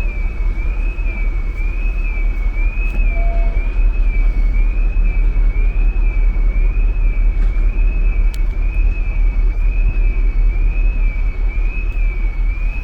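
A high siren-like tone warbling up and down in an even, quick rhythm, about three cycles every two seconds, over a steady low rumble.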